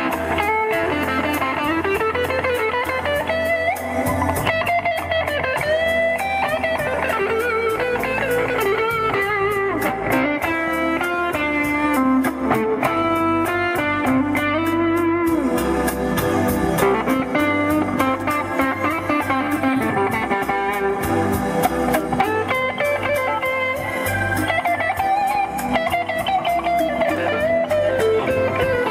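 Electric guitar played live through speakers built into a custom car's trunk: a melodic lead line with many bent notes and quick runs.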